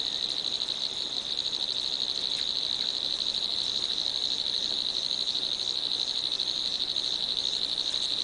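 A continuous chorus of calling animals: a high, rapidly pulsing trill that holds steady, with a fainter, higher chirp repeating about twice a second over it.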